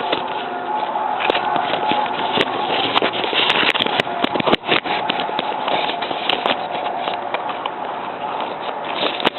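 Unexplained steady droning hum over a continuous rushing noise, the strange sound heard on and off for hours across the city. A cluster of sharp clicks comes about three to five seconds in.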